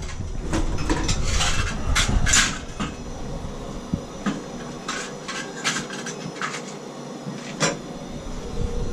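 Metal clinks and knocks from tools working on the copper pipes and fittings of a shower valve, loudest in the first few seconds, over a low rumble that stops about four seconds in.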